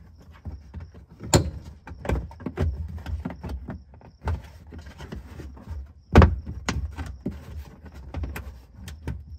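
A car's plastic interior pillar trim panel is pulled off by hand, giving a series of sharp clicks, knocks and plastic rattles as it flexes and its clips let go. The loudest snap comes about six seconds in.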